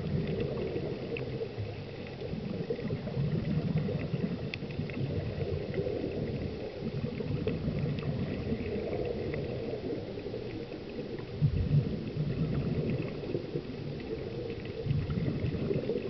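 Muffled underwater sound picked up by a submerged camera: a low, steady rumble and swish of water with faint scattered clicks, and a brief louder thump about eleven and a half seconds in.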